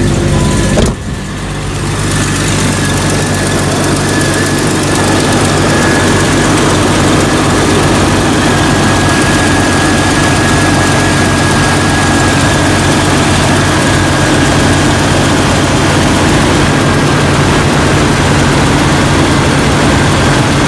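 Jeep Cherokee XJ's 4.0-litre straight-six idling steadily, with a thin high whine alongside. The engine has just started strongly on a new battery, and the alternator is charging at about 14 volts.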